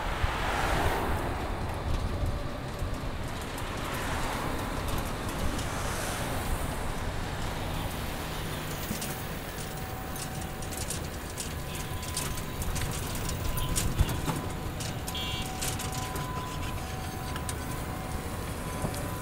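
Street ambience heard from a moving bicycle: steady wind and road rumble on the camera microphone, with city traffic passing, one vehicle going by near the start.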